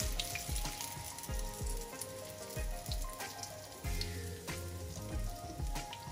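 Hot oil sizzling and crackling in a frying pan around a panko-breadcrumbed whiting fillet, with background music with a steady beat playing over it.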